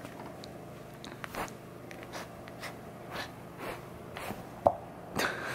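Blue heeler mix puppy tugging and mouthing a braided rope toy: irregular short scratchy rustles and snuffles a few times a second, with a sharp click about four and a half seconds in.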